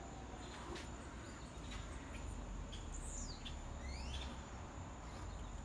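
Birds calling in tropical forest: a few short whistled calls that slide down in pitch, and one that slides up about four seconds in. Under them runs a steady high hum and a low rumble.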